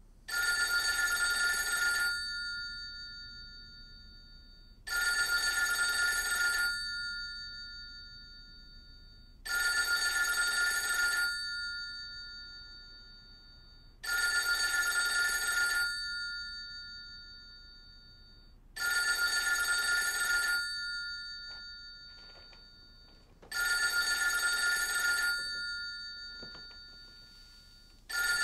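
Old rotary-dial telephone's bell ringing: six long rings of about two seconds each, spaced some four and a half seconds apart, each fading away slowly, and a seventh cut short near the end.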